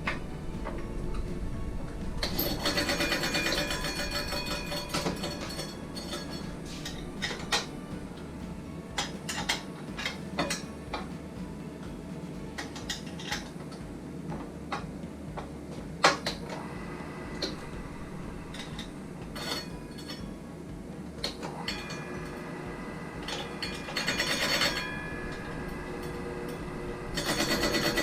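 Mildrich 250ES meat slicer being worked on: a steady low hum under scattered sharp clicks and knocks of metal parts, with a few short stretches of denser rattling.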